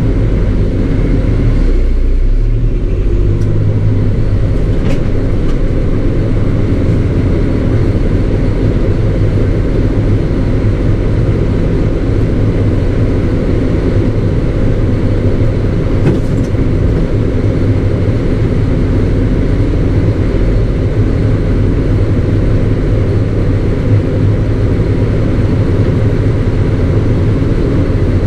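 Rostselmash RSM 2375 tractor's turbocharged diesel engine running steadily while the tractor is driven, heard from inside the cab as an even low drone.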